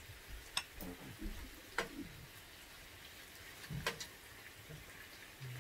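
Meat sizzling faintly on a tabletop electric grill, with three sharp clicks of chopsticks or tongs against bowls and the grill plate, about one, two and four seconds in.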